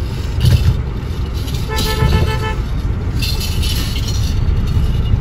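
A vehicle horn honks once for about a second, over the steady low rumble of a road vehicle running.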